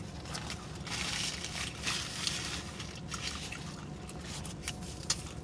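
Close-miked wet chewing and lip-smacking of someone eating: a run of soft, irregular clicks and squishes.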